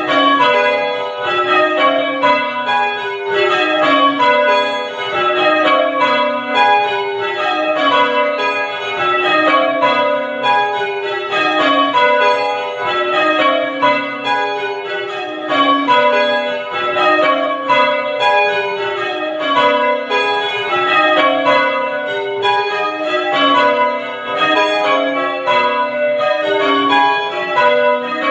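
Five church bells rung full-circle in change ringing, each striking in turn in repeating descending runs of about five strokes every two seconds, with the rows overlapping and ringing on.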